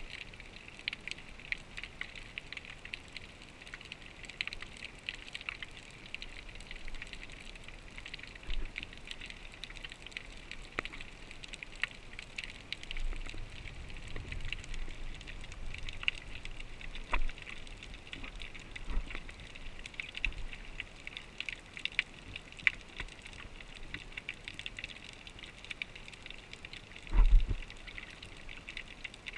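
Underwater ambient sound picked up by a submerged action camera: a constant crackle of fine, dense clicks, with a few dull low thumps, the loudest near the end.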